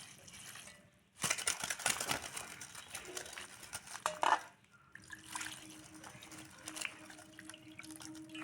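Futkal leaves being washed by hand in a vessel of water: splashing and dripping in uneven bursts, with a short pause about halfway through.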